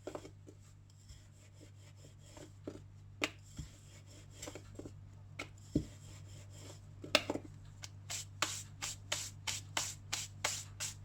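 Rolling pin knocking and rolling on a board as a momo wrapper is rolled out. Scattered knocks give way, about eight seconds in, to a quick regular run of knocks, about four a second. A low electrical hum runs under it.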